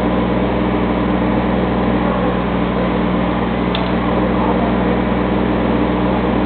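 Mini-excavator engine running steadily with a continuous hum while the bucket is eased down slowly on its hydraulics. A single light tick about four seconds in.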